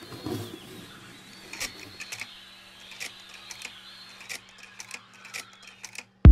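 Scattered light clicks and ticks, irregularly spaced, over a faint steady hum. Music with a heavy beat cuts in suddenly at the very end.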